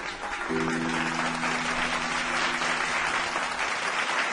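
A crowd applauding, over background music that holds one sustained chord from about half a second in.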